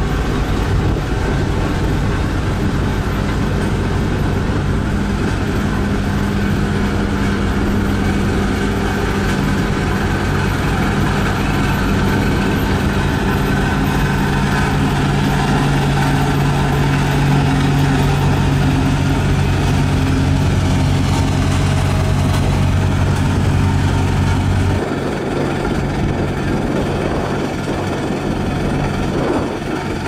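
Diesel engine of a HAMM 3410 single-drum road roller running steadily as it drives over a gravel road base, a loud, even engine drone. About three-quarters of the way through it switches abruptly to a different roller engine with less deep rumble.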